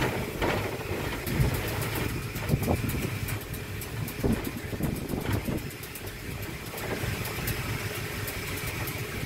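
A vehicle running: a steady low rumble with rapid faint clicks throughout.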